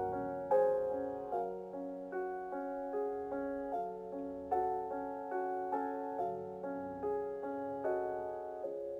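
Soft instrumental piano music: gentle chords and notes struck at an even, unhurried pace, each ringing and fading.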